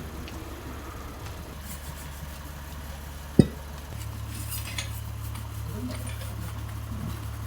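Car engine idling steadily, its hum stepping up slightly about four seconds in, with metal tool clinks and one sharp knock about three and a half seconds in.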